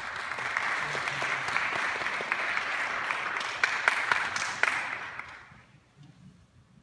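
Audience applauding, with a few sharper single claps standing out; the applause dies away about five to six seconds in.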